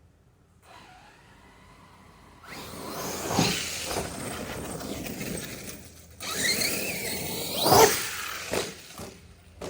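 Arrma Kraton RC car's electric motor whining up and down as it speeds over the ground, with hard thumps of impacts, the loudest near the end.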